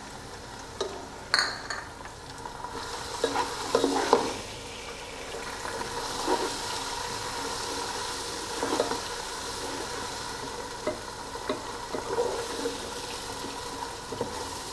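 Sliced onions and ginger-garlic paste frying in hot oil, sizzling steadily, while a wooden spatula stirs and scrapes them round the pot, with short knocks every second or two. The sizzle fills in a couple of seconds in as the paste is stirred into the oil.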